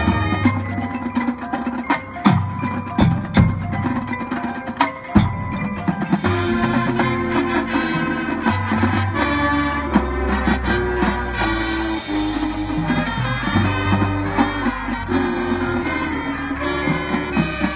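Marching band playing live, led by the front ensemble's mallet percussion (marimbas and glockenspiel) with drums. There are sharp percussion hits over the first five seconds or so, then a sustained pitched passage over a steady bass.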